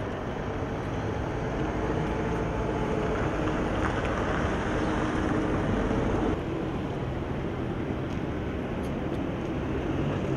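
Street traffic noise: a motor vehicle's engine running nearby, steady, then dropping away suddenly about six seconds in.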